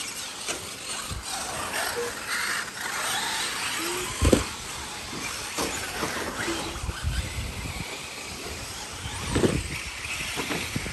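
Radio-controlled off-road buggies racing around a dirt track, their motors and tyres making a steady noise, with a sharp thump about four seconds in and another around nine and a half seconds.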